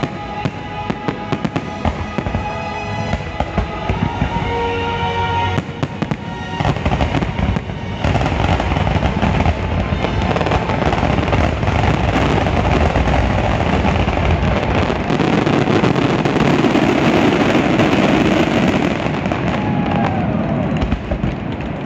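Fireworks finale: rapid bangs and crackling over the show's music, building about eight seconds in into a dense, continuous barrage of crackle and bursts that drowns out the music, easing slightly near the end.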